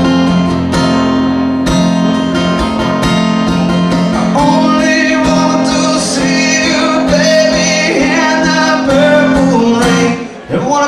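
Live country music: strummed acoustic guitar, with a voice singing a melody over it from about four seconds in.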